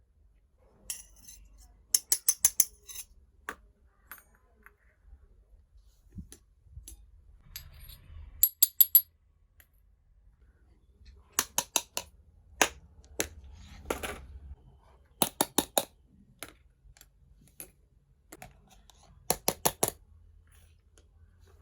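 Sharp clicks and taps of small hard toy pieces being handled, coming in quick clusters of four or five every few seconds with quiet gaps between.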